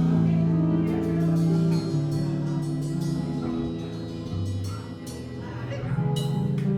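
Live band playing, holding long ringing chords with little drumming, and drum hits coming back in near the end.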